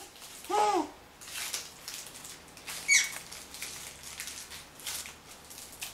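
A toddler's short rise-and-fall vocal sound and a sharp rising squeak, with light patter of socked feet on a wooden floor.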